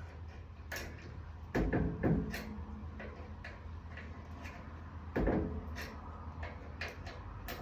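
Scattered light clicks and knocks from a roof rack turnbuckle being turned by hand to tighten it.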